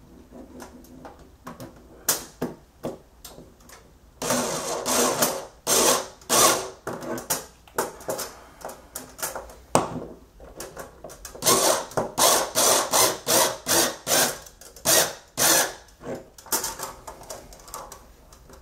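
Small cordless screwdriver running in many short stop-start bursts as it tries to drive a small machine screw through a steel strut tab into a metal bracket. The screw is not going in cleanly, which the owner puts down to its having been started at an angle and threaded improperly.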